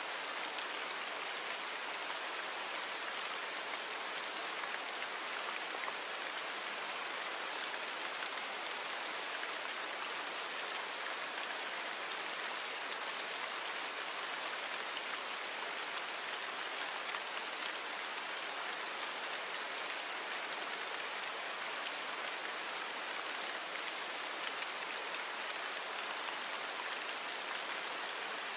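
Steady rain falling on a surface: an even hiss of many drops, without thunder or other events.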